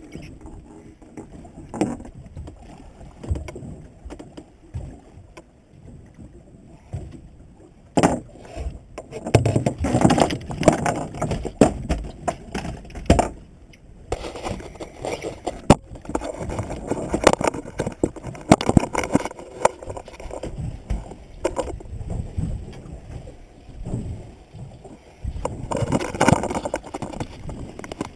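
Irregular knocks, thumps and rubbing of gear and the catch being handled on a small fishing boat, some right at the camera as a hand moves over it, over a low rumble of water and wind.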